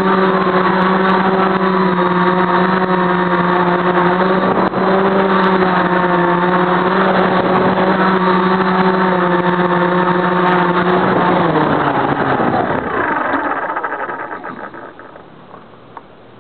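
Multirotor's brushless motors and 10-inch propellers running with a steady, even-pitched hum. About eleven seconds in, the pitch drops and they wind down to a stop as the craft settles on the ground.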